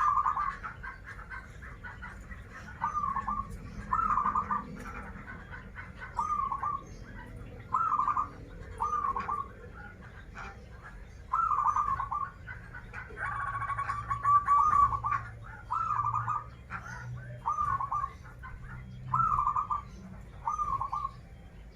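Zebra dove (perkutut) singing: a dozen or so short, clipped cooing phrases repeated about once a second, with a longer rapid trilled phrase about halfway through.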